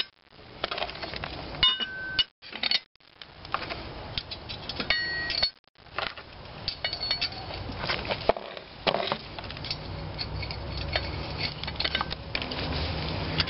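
Steel parts of a homemade gib key puller clinking and knocking together as a pipe spacer and bolted plate are fitted onto the flywheel hub and the nut is run on by hand. A few of the knocks ring briefly, and a low hum comes in during the last few seconds.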